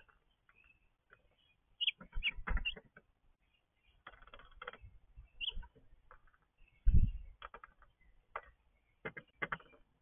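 Small songbirds at a feeder heard close up through the feeder camera's built-in microphone: scattered clicks and scrabbling of feet and beaks on the feeder, a few short chirps, and one heavy thump about seven seconds in.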